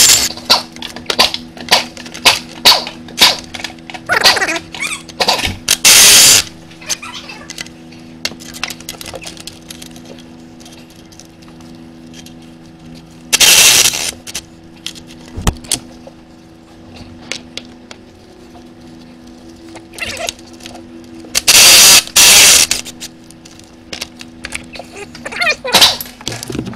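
Compact cordless impact wrench hammering the exhaust manifold nuts loose. There is a quick run of short blips and clicks in the first few seconds, then three longer bursts about six, fourteen and twenty-two seconds in, over a steady low hum.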